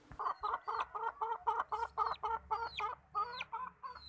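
An animal making a rapid, even series of short clucking calls, about four or five a second, stopping abruptly near the end.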